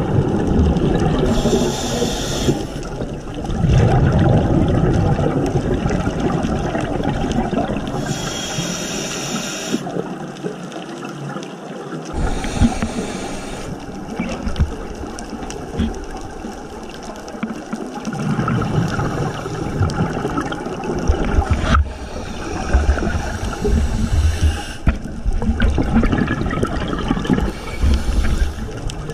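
Scuba regulator breathing heard underwater: short hisses of inhalation alternate with low, bubbling bursts of exhaled air, a breath every few seconds.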